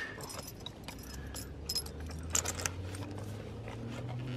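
Leather strap and metal buckle of a tree-climbing spur being handled and threaded around a boot: scattered light clicks and jingles, over a low steady hum.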